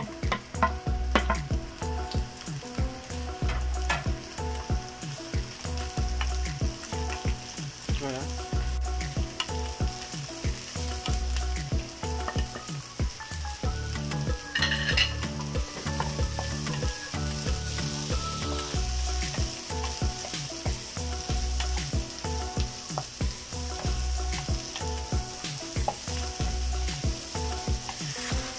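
Red onion and garlic sizzling in oil in a nonstick frying pan as the aromatics are sautéed, stirred with a wooden spatula that scrapes and clicks against the pan. Background music with a steady beat plays underneath.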